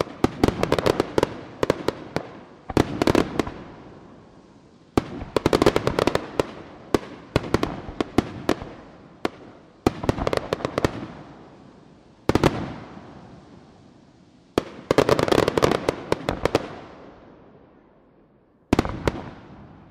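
Aerial firework shells bursting in volleys of sharp bangs and dense crackling, each volley fading out over a couple of seconds. About eight volleys come every two seconds or so, with a longer lull before the last one near the end.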